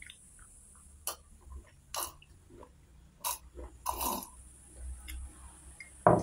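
Swallowing gulps of an iced syrup drink from a glass, a handful of separate gulps about a second apart, followed by one loud, short sound near the end.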